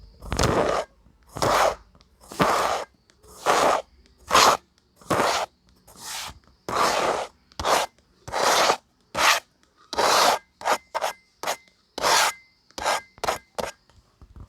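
Kinetic sand rasping under a series of strokes, about one a second at first, then shorter, quicker strokes from about ten seconds in.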